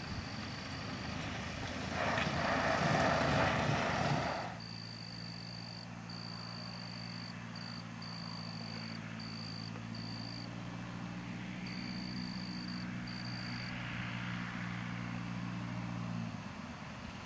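Continental A-65 four-cylinder air-cooled engine of a light homebuilt airplane, running at power on a grass-strip takeoff roll, loudest about two to four seconds in. Then an even, steady engine drone as the plane flies low overhead. A thin high-pitched chirping comes and goes in the background.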